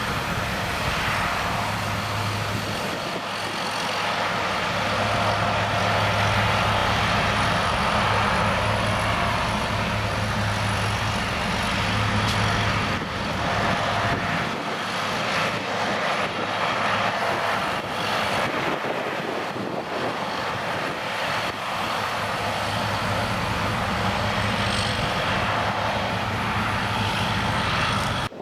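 A steady engine drone with a low hum, running without a break and cutting off suddenly at the end.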